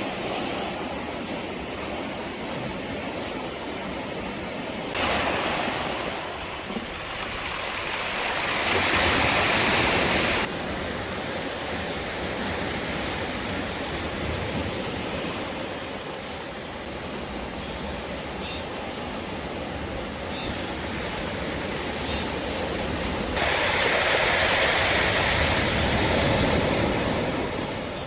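Sea waves washing against the shore, a steady rushing noise that swells into two louder surges, one about nine seconds in and one near the end.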